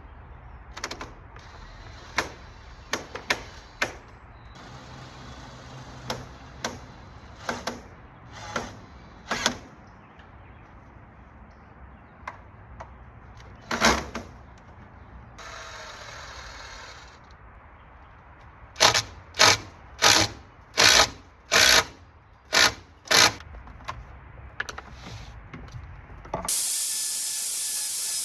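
Sharp knocks and taps, scattered at first, then a quick run of about seven strikes at roughly two a second. Near the end a loud steady hiss starts abruptly.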